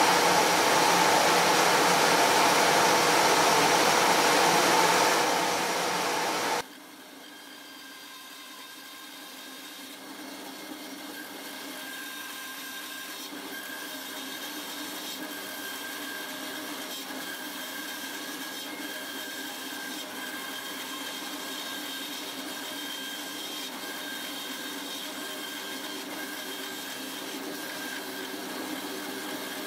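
A woodworking power tool runs loudly and steadily, with a held whine in its noise. About six seconds in the sound cuts off suddenly to a much quieter steady machine hum carrying a few held tones.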